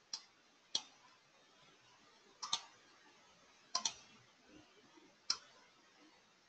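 Computer mouse clicking: two single clicks, then two quick double-clicks, then one more click, each short and sharp over a quiet room.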